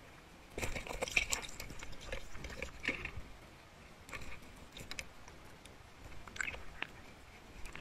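Underwater recording of irregular sharp clicks and crackles, densest in a cluster from about half a second to three seconds in, with scattered clicks after: gear and the speared fish knocking against the camera housing while the diver handles the catch.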